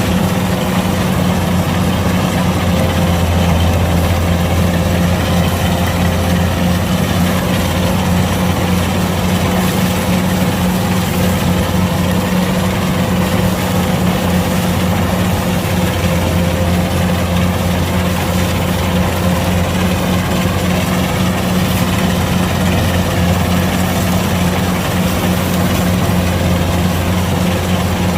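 Kubota DC-105X combine harvester's diesel engine and machinery running at a steady speed, an even low drone that holds unchanged throughout.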